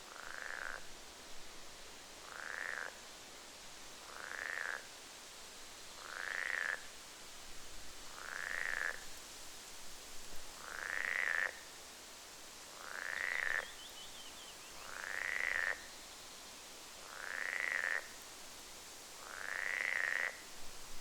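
An animal call repeated about every two seconds, ten times in all, each a short rising call, over a steady hiss.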